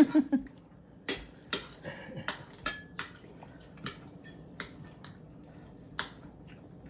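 Spoons and forks clinking and tapping against plates and a bowl during a meal: about a dozen sharp, scattered clicks, a few with a brief ring.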